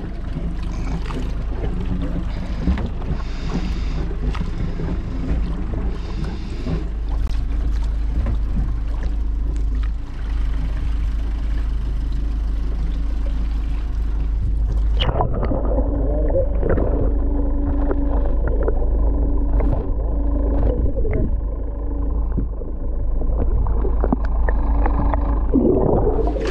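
Steady low rumble and sea noise aboard a small fishing boat. About halfway through, the sound suddenly turns muffled, as heard from a camera under the water, with a low hum and short bubbling splashes.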